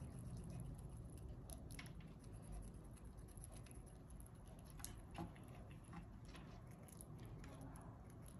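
Fox squirrel chewing nuts: faint, irregular crunching clicks, a few sharper ones about two, five and six seconds in, over a low steady hum.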